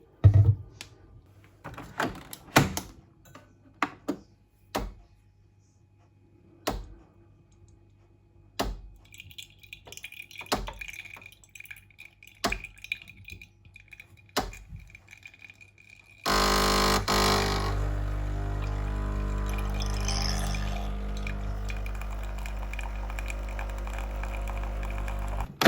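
A series of separate sharp knocks and clinks, then about two-thirds of the way in a machine starts abruptly and runs steadily, a low hum with a rushing noise over it.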